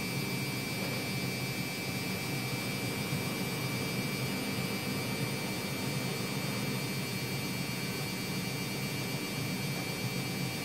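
Steady background hum and hiss in a small room, with a constant high tone over it and no distinct events.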